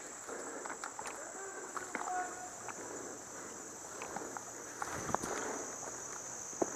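A steady high insect drone, crickets or similar, with scattered rustles and crunches of footsteps through leaf litter and brush.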